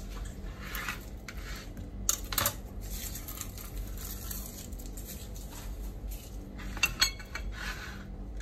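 A chef's knife and an onion being put down and handled on a plastic cutting board and stone countertop: light clatters and knocks, the sharpest about two seconds in and again around seven seconds in.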